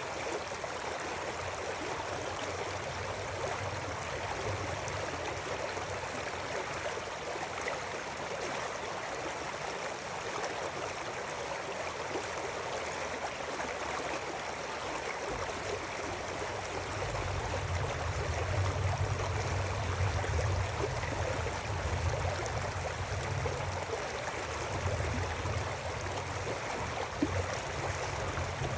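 River water flowing steadily, a continuous rushing and babbling. A low rumble comes in about halfway through and stays to the end.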